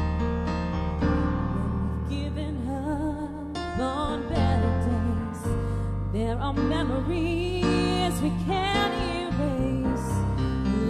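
Live worship music: sustained electric keyboard chords, with a woman's voice singing a slow melody over them from about two seconds in.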